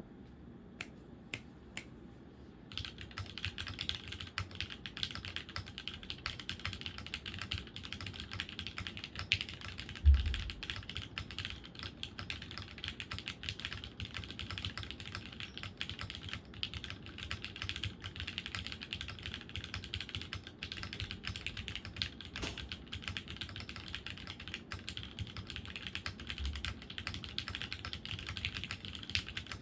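Typing on a Dolice Alice-layout mechanical keyboard with lubed Cherry MX pre-tool Black linear switches, an aluminium plate and GMK keycaps. A few separate keystrokes come first, then steady, fast typing from about three seconds in. One louder deep thump falls about ten seconds in.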